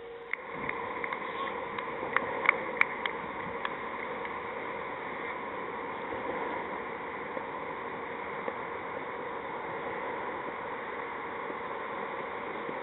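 Steady outdoor background noise with several sharp clicks about two to three seconds in.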